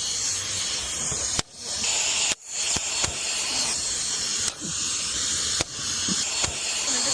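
Steady high-pitched hiss of falling rain, which cuts out suddenly four times and swells back each time within about half a second.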